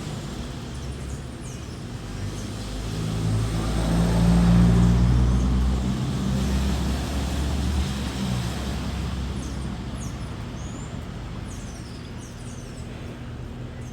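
A motor vehicle passing by: a low engine hum with road noise grows louder to a peak about four to five seconds in, then slowly fades away.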